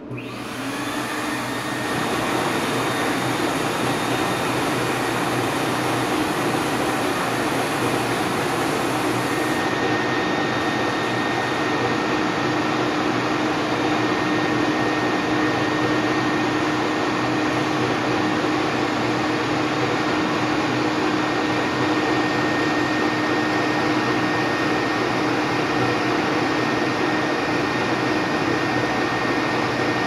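STEP 100 escalator step-cleaning machine switching on, its motor spinning up over about two seconds and then running steadily with a loud vacuum-like whir. A steady higher whine joins about ten seconds in.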